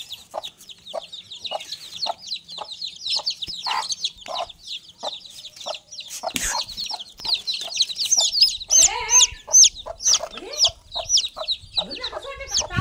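Chicks peeping rapidly and continuously over a mother hen's soft low clucking, about two clucks a second. From about eight seconds in, the peeps get louder and higher-pitched.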